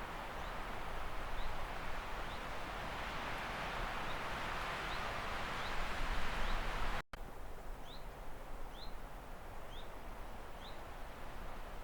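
Small bird repeating short, high rising chirps about once a second over a steady rushing background noise. The sound cuts out abruptly for an instant about seven seconds in, and the rushing is quieter after that while the chirps go on.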